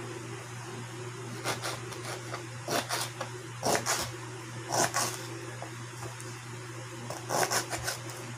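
Kitchen knife slicing ginger root on a plastic cutting board: short groups of quick chopping knocks, several times, over a steady low hum.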